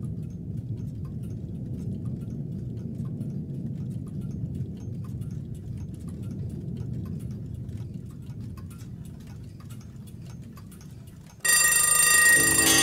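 Low, steady road-and-engine rumble of a car driving at speed, with faint regular ticking over it, slowly fading. Near the end, loud music with bell-like tones cuts in abruptly.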